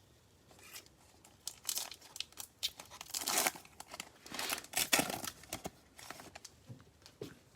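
Plastic wrapper of a Donruss football card pack crinkling and tearing as the pack is torn open, a run of irregular crackles starting about a second in.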